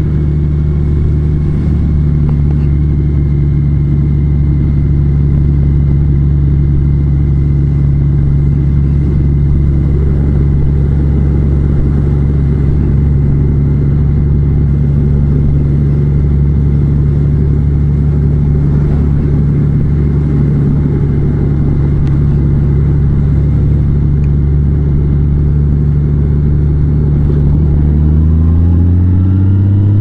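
Large motorcycle's engine running at a steady speed while riding, its pitch rising near the end as it accelerates.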